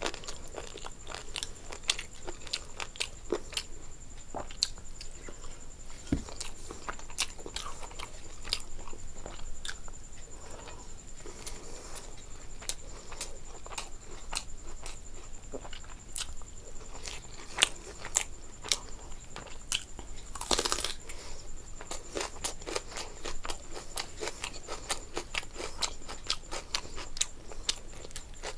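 A person eating close to the microphone: steady chewing with many small wet clicks and crunches, and one longer, louder crunch about twenty seconds in.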